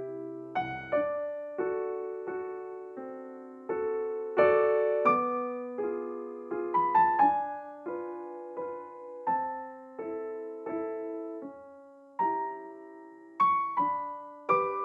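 Background music: a gentle solo piano melody with chords, notes struck and left to ring.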